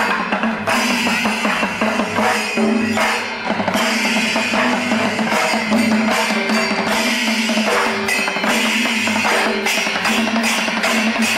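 Music with a steady drum and percussion beat.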